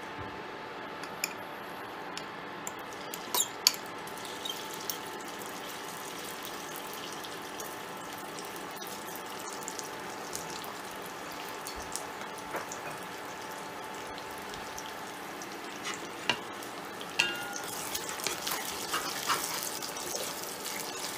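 Chicken pieces sizzling in hot oil in a cast iron mini wok, a steady frying hiss, with a few knocks about three seconds in. From about three-quarters of the way through, a wooden spatula stirs and scrapes the chicken around the wok, louder and more clattery.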